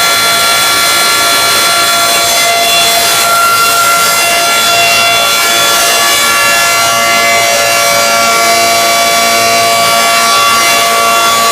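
Canadian CLM 10/12 air raid siren, rebuilt after being found seized, sounding on a test run: a loud, steady sound of several tones at once whose pitch drifts slightly up and down.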